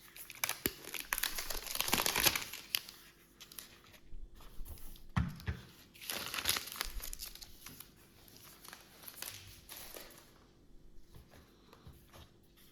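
Protective wrap being peeled off the SwitchBot Lock Pro smart lock and crumpled in the hands, with irregular crinkling and tearing that fades toward the end.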